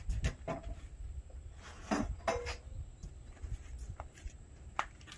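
A few scattered knocks and clatters, a couple close together about two seconds in and another near the end, over a low rumble of wind on the microphone.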